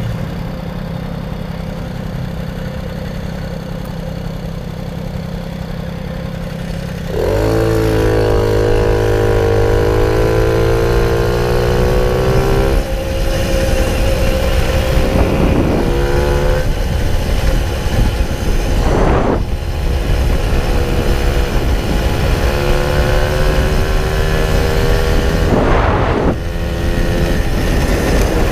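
Puch Maxi Luxe moped's 50cc two-stroke single with a Puch Radical sidebleed expansion pipe (end bleed blocked off), running steadily and quietly at first. About seven seconds in it revs up sharply as it pulls away, rising in pitch, then keeps running hard at speed, with a few brief rushes of wind noise.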